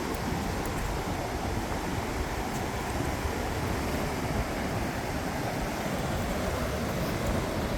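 Steady wash of ocean surf, with wind buffeting the microphone in low rumbling gusts.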